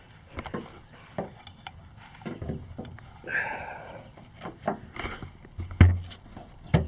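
Handling noise as nylon webbing straps are pulled out through the gap of a slightly opened car hood: scattered clicks, rustles and knocks, with one louder thump near the end.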